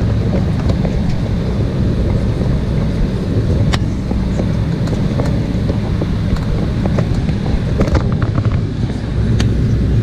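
Cabin noise of an Embraer E190 airliner taxiing: a steady low drone from its engines at taxi power and the rolling of the aircraft, with a couple of sharp clicks about four seconds in and near the end.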